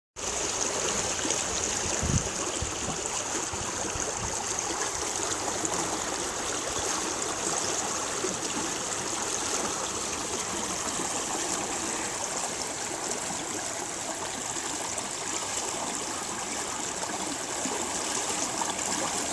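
Floodwater of a flooded river rushing steadily, with a brief low thump about two seconds in.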